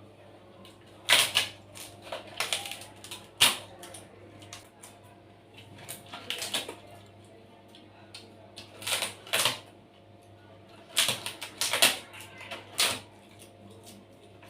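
Close-up crunching and chewing of crispy fried snacks, with sharp crackling bites coming in irregular clusters.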